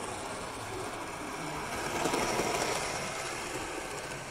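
Model steam locomotive running along the layout track: the small electric motor's whirr and the wheels rumbling on the rails, growing louder to about two seconds in as it passes and then fading.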